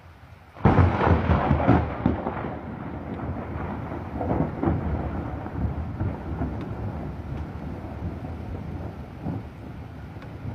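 Thunderclap in a rainstorm: a sudden loud crack less than a second in, breaking into a long rolling rumble that slowly fades, over a steady hiss of rain.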